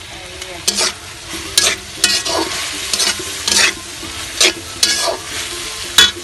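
A spatula stirring and scraping through bottle gourd greens, potatoes and egg in a sizzling pan, in a string of uneven scrapes, with a sharp clack near the end.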